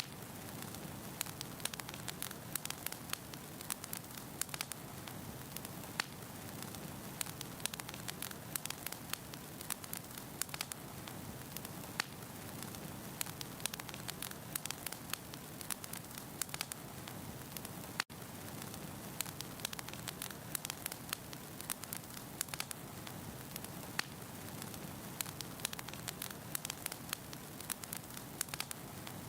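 Wood burning in a fireplace: a steady low hiss of flames with frequent, irregular sharp pops and snaps from the logs. The sound cuts out for an instant about two thirds of the way through.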